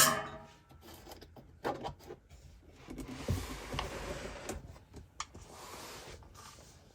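Handling of flat-pack furniture panels and hardware during assembly: scattered knocks and clicks, some rubbing and rustling, and a dull thump about three seconds in.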